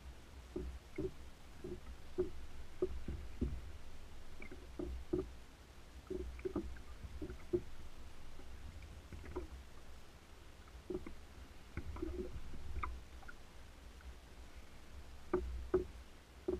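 Water lapping and slapping against a kayak hull in short, irregular knocks, over a steady low rumble of wind on the microphone.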